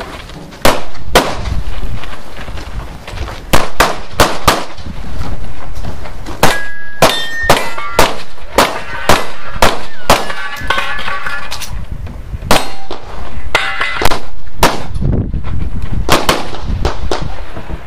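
Gunshots fired in quick strings of two to five at a time, about two dozen in all, with steel targets ringing out with a clang after several of the hits.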